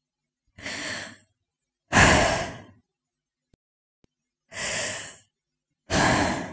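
A woman breathing in two pairs of breaths. Each pair is a softer breath followed about a second later by a louder one that starts sharply and fades, with silence between the breaths.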